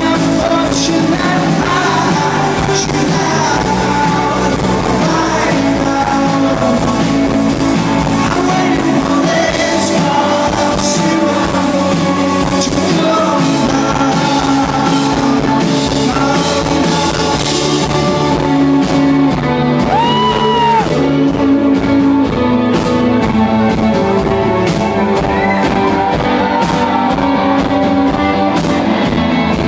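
Live rock band playing a song with lead singing. About two-thirds of the way through, the arrangement thins at the top and a steady, evenly struck beat comes forward.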